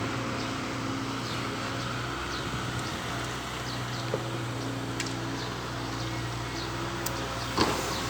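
Volvo excavator's diesel engine running steadily, with a single short clank near the end.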